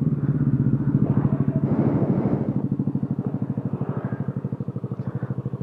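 Motor scooter engine idling with an even, rapid putter.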